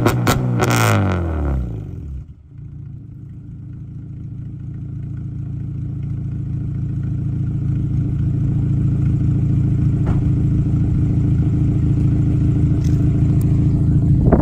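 Acura RSX Type-S's 2.0-litre K20 four-cylinder, with headers and a tune, held on its 2-step launch limiter with rapid crackling pops from the exhaust. The revs then fall away and the engine settles to a steady idle that grows gradually louder.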